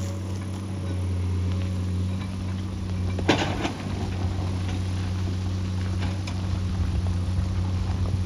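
Excavator's diesel engine running steadily with a low hum, with one sharp knock about three seconds in.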